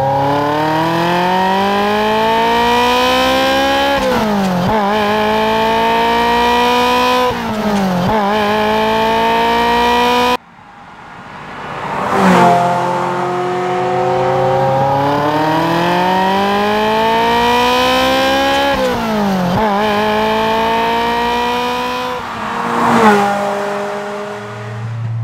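Ferrari F355 Challenge's V8 accelerating hard, heard from inside the cabin: its pitch climbs through the revs and drops sharply at each of two upshifts. After a sudden cut, the car is heard passing from the roadside, revving up again through more gear changes and swelling loudest twice as it goes by.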